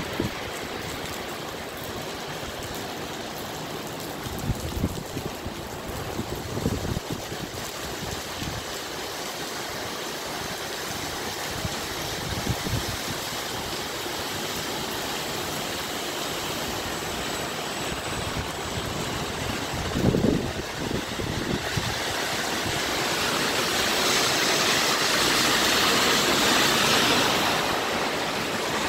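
Steady hiss of rain and bus traffic on a wet road, with a few short low thumps. The hiss swells louder about three-quarters of the way through.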